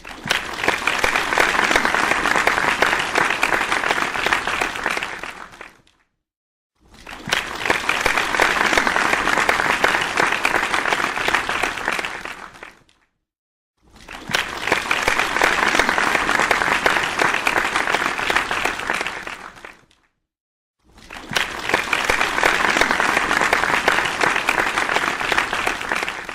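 Audience applause, played as four separate takes of about six seconds each, each starting quickly and fading away, with about a second of silence between them.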